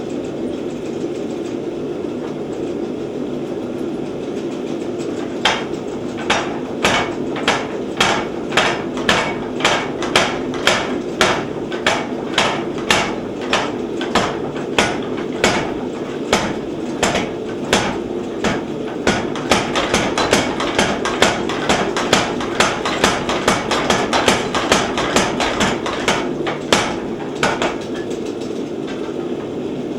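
Little Giant 50-pound power trip hammer running with a steady motor hum. About five seconds in, it starts striking a steel bar in a quick, even run of blows, about two a second, speeding to about three a second. It is drawing the bar down thinner, and the blows stop near the end while the machine keeps running.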